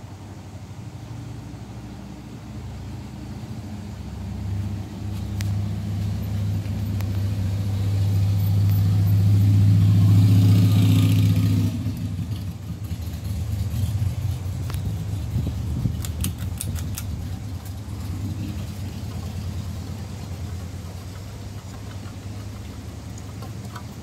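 King of Fans Explorer II five-blade ceiling fan running, a low hum with a rush of air from the blades. It swells to its loudest about ten seconds in, then drops off suddenly, and a few faint clicks follow a few seconds later.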